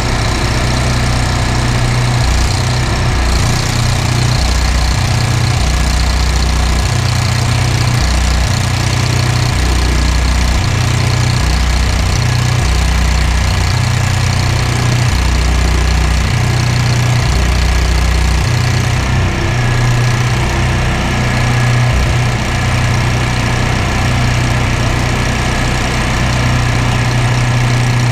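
An engine idling steadily with a low, uneven throb.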